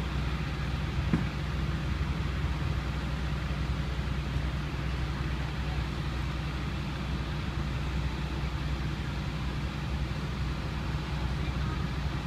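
Steady low engine drone of idling emergency vehicles, with a short knock about a second in.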